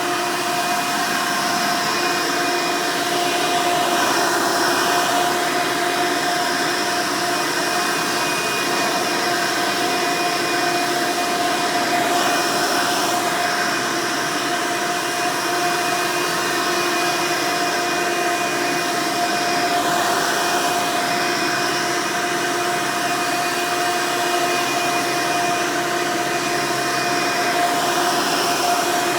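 Hoover Elite upright vacuum cleaner running steadily: its direct-air motor gives a constant whine with a steady pitched hum over the rush of air.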